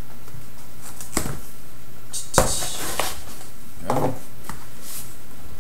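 A cardboard shipping box being handled after its tape is slit with a large Sebenza folding knife: a few separate knocks, scrapes and clicks about a second apart, including the metal knife being set down on the wooden desk, over a steady background hiss. The loudest knock comes about two and a half seconds in.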